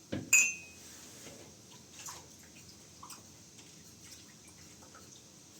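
A sharp clink about a third of a second in, ringing briefly with a bright tone, then faint scattered taps and ticks, like light handling of household objects with some dripping.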